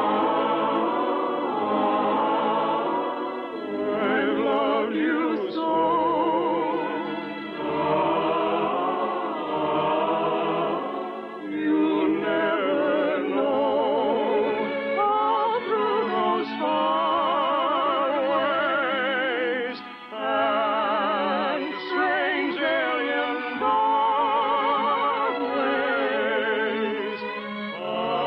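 Classical-style singing with a wide vibrato over an orchestra, in long phrases: a song from a 1950 radio musical, on an old broadcast recording with no highs above about 4 kHz.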